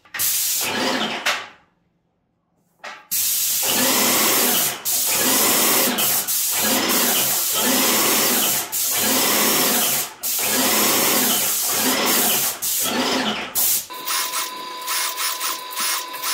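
Wagner Control Pro 250R airless paint sprayer running: a loud spray hiss pulsing in an even rhythm from the pump, with brief breaks. The sound stops dead for about a second near the start, and near the end it turns into a steadier whine with fast ticking.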